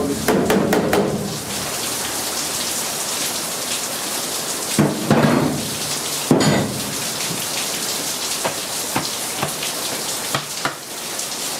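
Heavy rain pouring down, a steady hiss, with a few knocks near the start and two louder knocks about five and six and a half seconds in.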